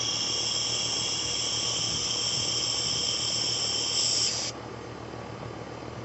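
Air and R-410A refrigerant hissing out of the open end of the yellow charging hose as it is purged through the manifold gauge set: a high, whistling hiss that cuts off suddenly about four and a half seconds in. The running condenser unit hums low underneath.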